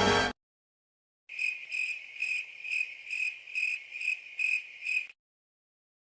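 Cricket chirping sound effect: a high, pulsing chirp that swells about twice a second for nearly four seconds. It is the stock 'crickets' gag effect used for an awkward silence.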